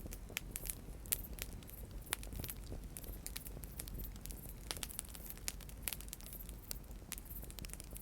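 Wood campfire crackling: irregular sharp pops and snaps scattered throughout over a low steady rumble of burning.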